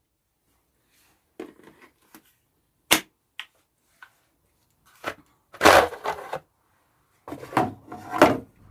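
Irregular knocks and clatters of wood being handled: a sharp crack about three seconds in, a longer, louder clatter a couple of seconds later, and a few more knocks near the end.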